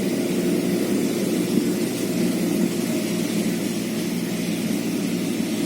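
An engine running steadily: a low, even drone with a few held tones.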